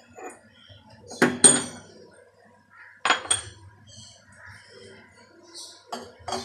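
Metal clinks against a metal cooking pan on a gas stove, coming in three pairs of sharp, ringing strikes.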